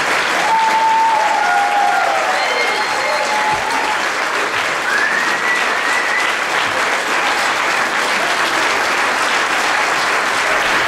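A concert audience applauding steadily, with a few cheers ringing out over the clapping in the first half.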